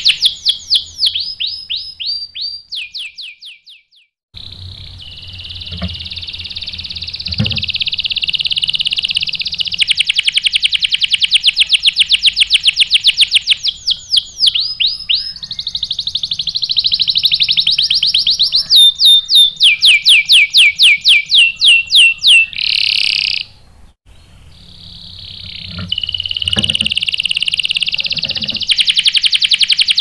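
Canary singing loudly in long trills and rolls of rapidly repeated high notes, switching between several trill types. Its song breaks off briefly a few seconds in and again about three-quarters of the way through.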